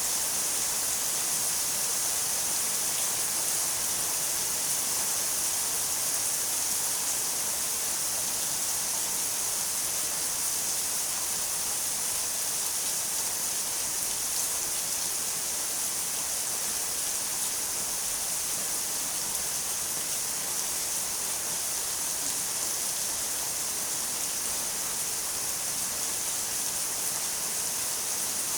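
Steady, even rainfall, a continuous hiss of rain with no breaks or single drops standing out.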